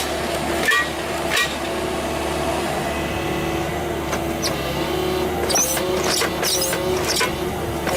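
A machine engine running steadily with a constant hum. Short knocks come near the start, and a run of clicks and knocks comes about two-thirds of the way in.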